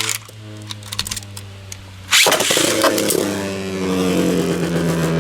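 Beyblade Burst spinning tops whirring in the stadium with a steady hum. About two seconds in there is a loud clatter, like a top being launched or striking, and then a new, slightly sliding whir.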